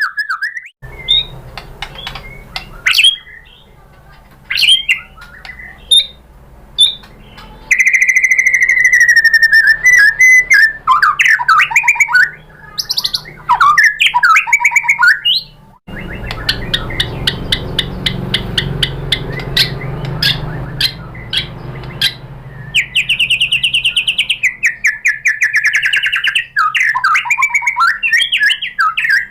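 White-rumped shama singing a varied song of loud whistles, sliding notes, sharp chirps and fast buzzy rattling trills, with a low hum and hiss behind it that grows louder in the middle.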